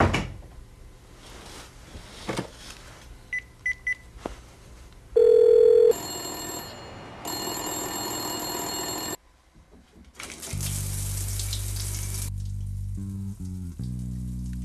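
Telephone sounds: a thump at the start, three short high electronic beeps about three and a half seconds in, then a loud steady phone tone lasting under a second, followed by a few seconds of hissing noise. After a brief near-silence, a low droning film score with stepped tones comes in.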